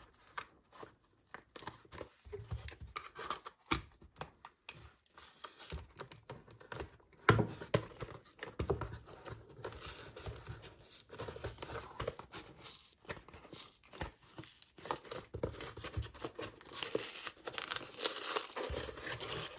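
A cardboard mailing box being torn open by hand: scattered scrapes, rustles and small tearing sounds of cardboard and paper. Near the end there is a longer, louder tearing as the box's tear strip is ripped away.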